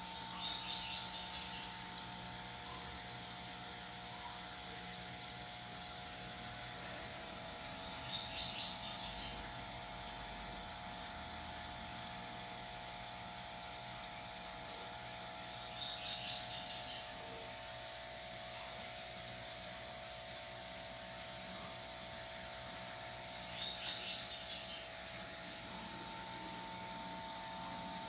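Steady hum of the aquarium's pump or filter, with a bird's short, high chirping call four times at even intervals of about eight seconds.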